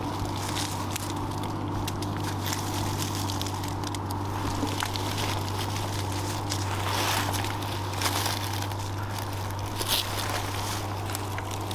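Irregular crackling and scuffing of someone creeping through dry leaves and brush, over a steady low hum.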